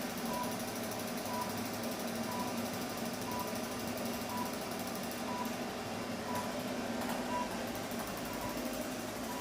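A machine's steady hum with a short high beep about once a second.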